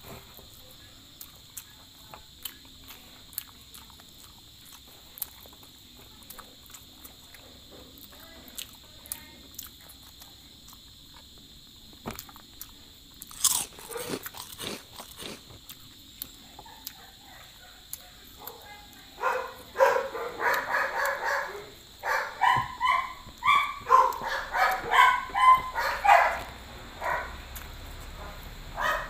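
Close-up chewing and biting as a man eats grilled chicken and rice by hand, with small wet mouth clicks. About two-thirds of the way through, a dog starts barking in quick repeated barks that are louder than the eating.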